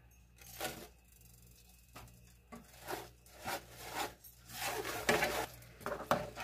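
A spatula scraping and stirring brown sugar into melted butter in a nonstick frying pan: a string of short rubbing scrapes. Canned carrot slices go into the pan near the end.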